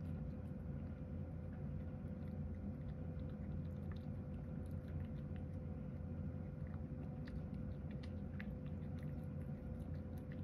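A cat eating from a bowl: small, irregular chewing clicks over a steady low hum that carries a faint steady tone.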